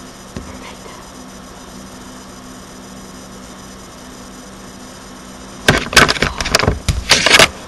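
Steady low electrical hum from the webcam's recording, then near the end about two seconds of loud, irregular rustling and knocking right against the microphone, as someone moves about beside it.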